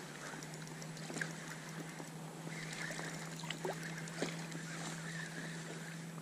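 Water lapping and a few small splashes and clicks as a hooked pike is played in on a spinning rod, over a steady low hum.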